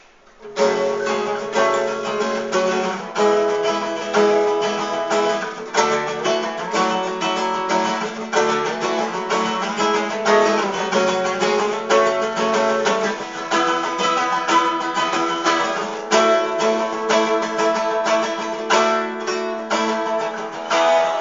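Acoustic guitar strumming chords in a steady rhythm as the introduction of a song, starting about half a second in.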